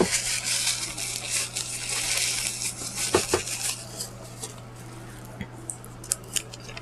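Tableware being handled: a dense, crackly clatter for about three and a half seconds, then two sharp knocks and a few light taps.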